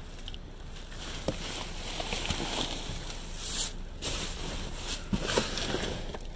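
Rummaging through an overflowing dumpster: cardboard and trash scraping and rustling, with scattered knocks and a few louder scraping bursts.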